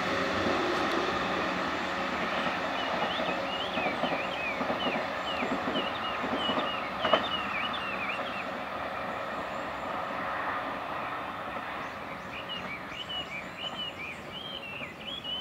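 A 211-series electric train running away down the line, its rail noise slowly dying down. Small birds chirp in short repeated calls over it.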